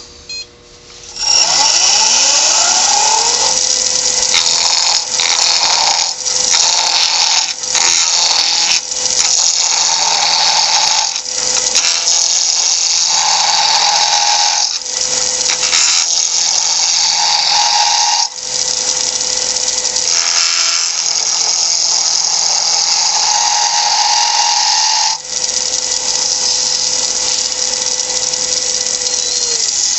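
Wood lathe motor spinning up about a second in, running with a steady whine, and winding down near the end. Over it, a turning chisel cuts a square hard maple blank round, a harsh rasping hiss that breaks off briefly again and again as the tool is lifted and moved.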